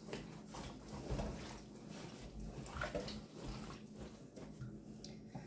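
Faint, irregular sloshing and soft handling sounds of cloth being worked into a pot of dye water.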